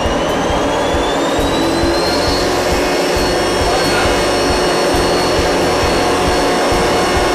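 Homemade propane-fuelled jet turbine being spun up by its starter: a high whine that rises until about two seconds in, then holds steady over a loud rush of air. The engine does not yet keep itself running.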